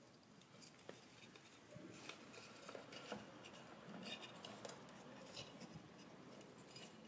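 Near silence with faint handling noises: light rustles and small scattered clicks as fingers work wires in white tubing through the lamp head's fluffy insulation and metal housing.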